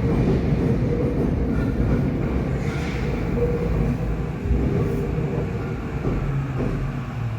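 Tokyo Metro 8000 series electric train running, heard from inside motor car MoHa 8209: a steady rumble of wheels and running gear with a few faint steady tones. It grows quieter near the end.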